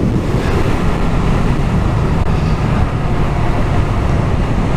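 Honda MSX125SF (Grom) 125 cc single-cylinder four-stroke engine running steadily while the bike is ridden, mixed with wind rushing over the microphone.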